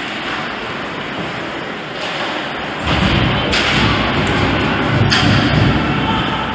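Ice hockey play heard from rinkside in an arena: skates, sticks and puck with thuds, over general rink noise that grows louder about three seconds in.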